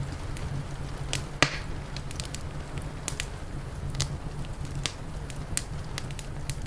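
Wood fire crackling, with irregular sharp pops and snaps, the loudest about a second and a half in, over a steady low rumble.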